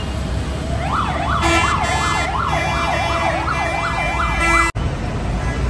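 Emergency vehicle siren yelping in a rapid rise and fall, about three cycles a second, over a steady rumble of heavy road traffic, with a couple of short horn blasts. The siren cuts off abruptly near the five-second mark.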